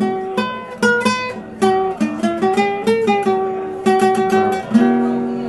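Acoustic guitar being plucked: a run of single notes and short chords, each with a sharp attack that dies away, several pitches repeating.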